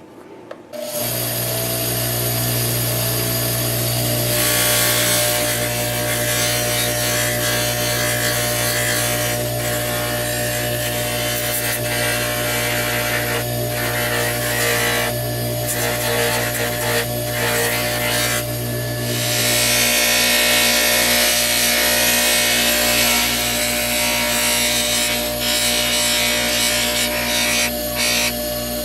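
Electric polishing buffer motor starts about a second in and runs with a steady hum, while the steel knife blade is pressed against the wheel, giving a rasping hiss that rises and falls as the blade is worked.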